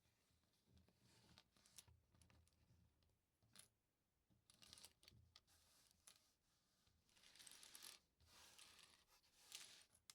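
Small plastic LEGO pieces quietly clicking and clattering as they are handled and pressed together. There are a few sharp clicks and, in the second half, stretches of rustling handling noise.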